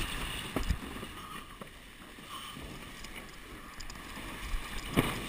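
Windsurf board sailing at speed over small chop: a steady rush of water and wind on the microphone, with a few sharp knocks of the board and rig against the waves, the loudest near the end.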